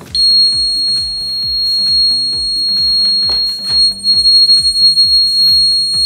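Active 12 V buzzer of a homemade reed-switch door alarm sounding one steady, loud, high-pitched tone that starts suddenly just after the start: the alarm has tripped as the door opens and the magnet moves away from the reed switch.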